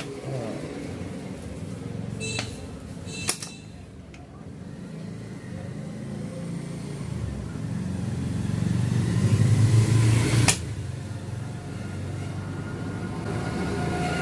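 SDB Sniper nitro-piston air rifle being handled and cocked. Two sharp clicks come a few seconds in, then a low strained sound grows louder and ends abruptly with a sharp click about ten and a half seconds in.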